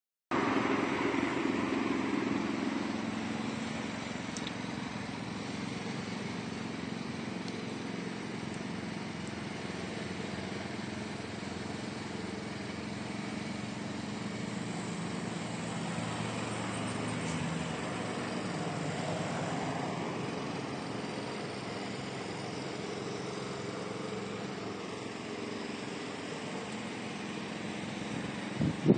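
Steady outdoor background noise of distant road traffic, with a faint low engine hum that is a little louder in the first few seconds.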